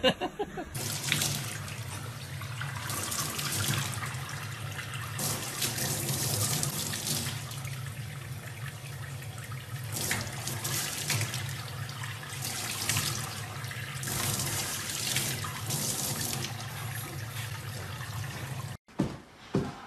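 Water from a tap running into a stainless steel sink, splashing over a young chimpanzee's hands and body as it bathes under the stream. The steady rush cuts off suddenly near the end.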